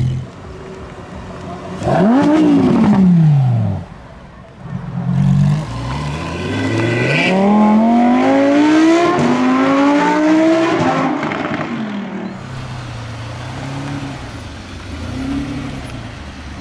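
A supercar's engine revved sharply once, then the car accelerating hard away: the engine note climbs, drops at an upshift about nine seconds in, climbs again through the next gear and fades out.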